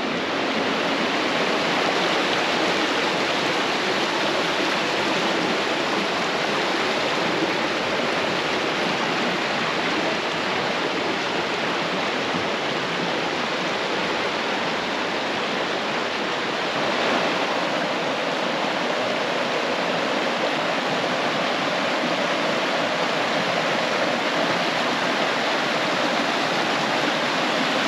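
Water rushing and splashing over rocks: a steady, even rush from a strong spring-fed flow, shifting slightly in tone a little past halfway.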